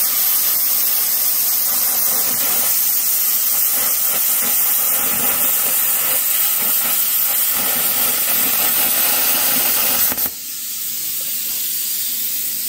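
Lotos LTP8000 plasma cutter set to 40 amps cutting steel plate: a loud, steady hiss of the arc and air jet that stops suddenly about ten seconds in. A softer, steady rush of air continues after that.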